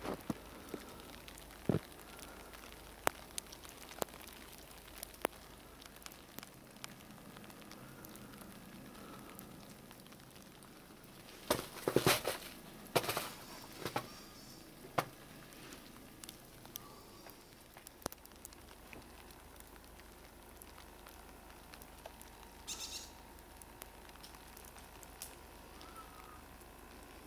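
Quiet background with scattered faint clicks and crackles. A few louder knocks come close together about halfway through, and a short buzzing sound comes near the end.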